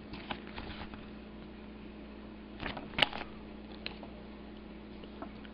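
Faint handling sounds of paper and trading cards: a few light rustles and clicks, with a sharper click about three seconds in, over a steady low hum.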